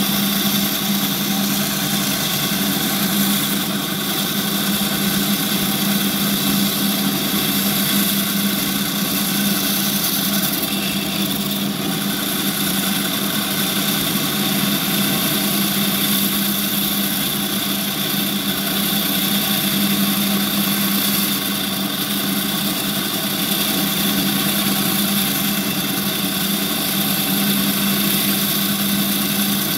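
Gryphon C-40 diamond band saw running with a steady hum as its wet diamond blade cuts through the rocky skeleton of an acan lord coral.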